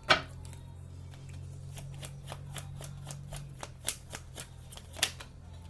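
Tarot cards being shuffled by hand: a run of quick, light clicks and flicks of card against card, with a sharper snap just after the start and another about five seconds in. A low steady hum runs underneath.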